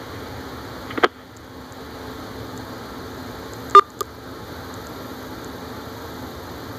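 Steady background hum of a small room, with a click about a second in and, just before four seconds in, a short, loud electronic beep followed at once by a click.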